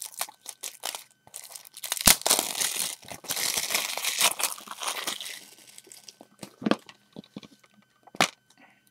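Cellophane shrink wrap being torn and crinkled off a plastic Blu-ray case. The crackling is densest from about two to five seconds in, with sharp clicks scattered through it.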